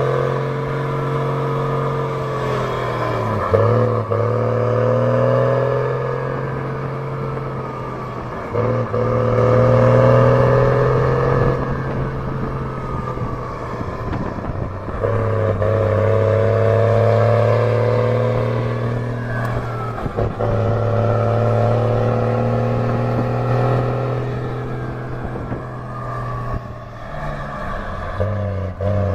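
Mercedes-Benz 1620 truck's diesel engine running loud under load. Its pitch breaks off and picks up again several times, as through gear changes, with a fainter high tone gliding down between them.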